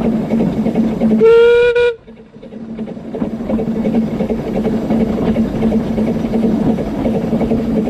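A short blast of under a second on the steam whistle of Dolgoch, the Talyllyn Railway's 1866 0-4-0 well-tank locomotive, over the steady running noise of the train. Just after the whistle the running sound drops away sharply, then builds back up.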